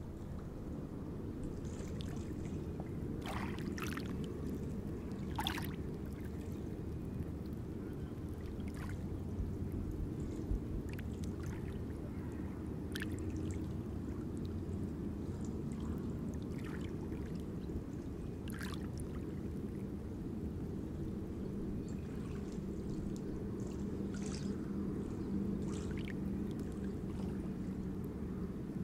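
Steady low rumble with soft water trickling and scattered small clicks, a shoreline water ambience.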